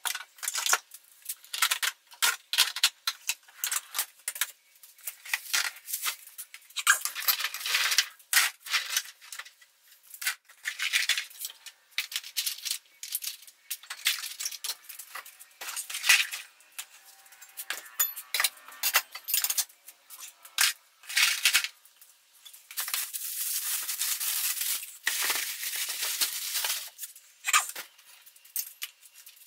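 Hand tools and small metal parts clinking and rattling as they are picked up, set down and put away in tool chest drawers, with irregular knocks throughout and a few longer stretches of scraping or rubbing, the longest near the end.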